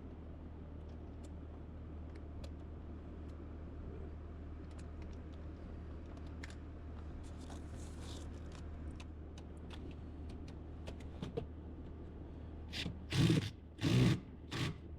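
Faint scattered clicks of parts and tools being handled over a steady low hum, then three or four louder short scraping handling noises in the last couple of seconds.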